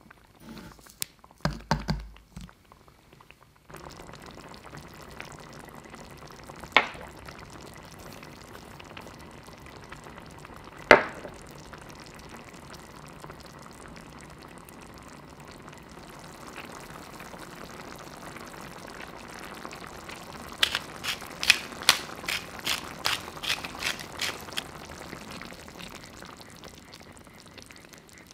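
Tomato sauce simmering in a pan, a steady bubbling hiss, broken by two sharp knocks of the spatula on the pan and later a run of quick taps as the sauce is stirred. Before the simmering starts, a few light clicks of a spoon in a jar.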